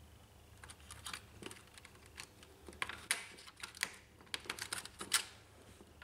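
Irregular light clicks and rustles of fingers working a wire-harness plug into its socket on a laser printer's circuit board, among the printer's plastic frame and cables.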